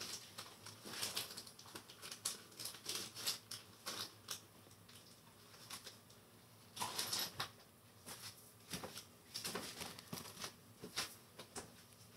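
Faint, irregular rustling and light clicks of small objects and packaging being handled, with a denser patch of rustling about seven seconds in.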